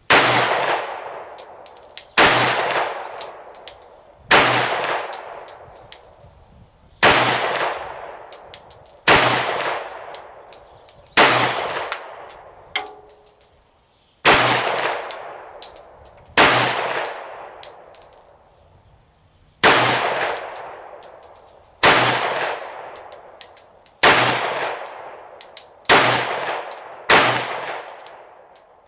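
Glock 19X 9mm pistol fired in slow, steady single shots, about a dozen in all, roughly one every two seconds. Each report echoes for a second or more before the next.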